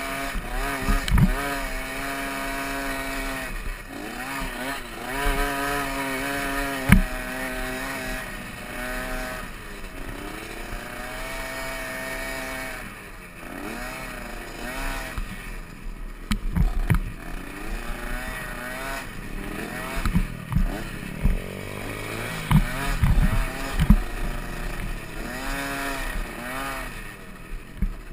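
Small youth dirt bike engine revving up and down over and over as it is ridden hard, heard close from the rider's helmet camera. Several sharp low thumps come through as the bike hits bumps in the track.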